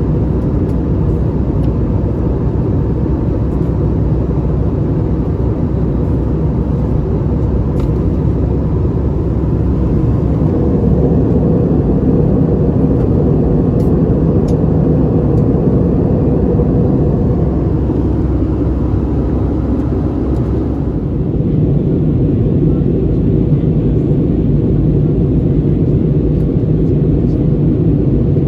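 Airbus A320 cabin noise: a steady, loud rumble of engines and airflow heard from a passenger seat. About two-thirds of the way through, the sound shifts, with the higher hiss falling away and the low rumble changing.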